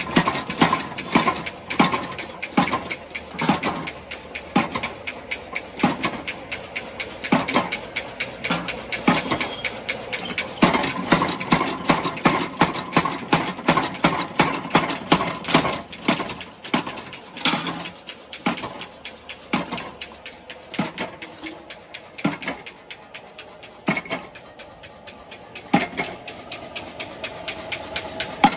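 Motor-driven mechanical power hammer pounding a heated steel plough blade in fast, repeated blows, several a second, to draw out and sharpen its edge. In the last few seconds the blows thin out over the steady hum of the hammer's motor, and the sound stops suddenly near the end.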